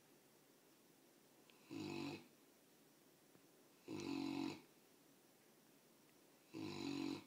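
Mastiff puppy snoring in its sleep: three snores, each under a second long, about two and a half seconds apart.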